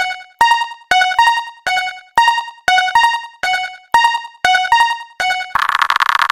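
Japanese railroad-crossing alarm bell ringing, with ding-like strikes alternating between two pitches at about two a second. About five and a half seconds in, the strikes give way to a steady buzzing tone.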